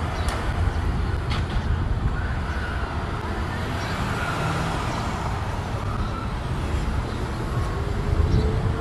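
Road traffic noise: a steady low rumble of vehicles on a street.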